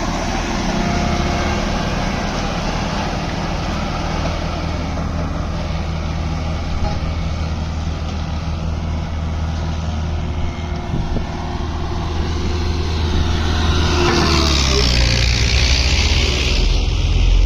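Diesel engine of an 8-ton vibratory road roller running steadily with a deep rumble. About two-thirds of the way through, the low rumble grows heavier and a hiss rises briefly over it.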